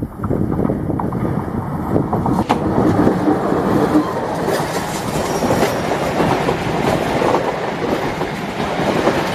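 A CC 206 diesel-electric locomotive passes at close range, followed by its passenger coaches rolling by. The sound is loud and steady, with a run of wheel knocks over the track, and it grows louder a couple of seconds in.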